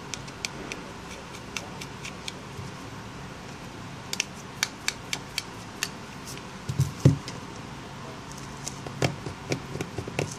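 Scattered light clicks and ticks of a small Torx T3 screwdriver and fingers working on a BlackBerry Z10's plastic back frame while its tiny screws are taken out, with a louder knock about seven seconds in.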